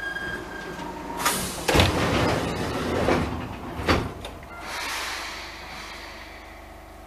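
An electric train's sliding doors working: a loud rush of hissing with a thump about two seconds in, a second thump near four seconds, then a softer hiss.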